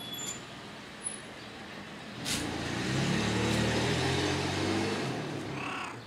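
A motor vehicle passes on the street: its engine and tyre noise come in suddenly about two seconds in, peak in the middle and fade away near the end.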